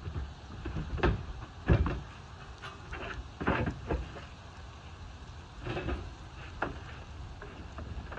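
Scattered knocks and bumps inside a van's cargo bay as a person shifts about on hands and knees on its floor, the loudest thump about a second and a half in.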